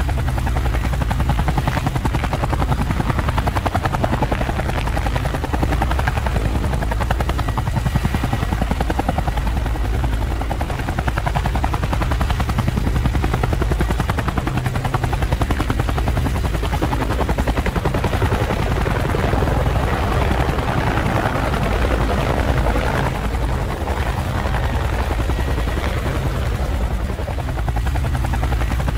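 Multirotor drone's propellers whirring steadily, a dense, even buzz with a strong low hum.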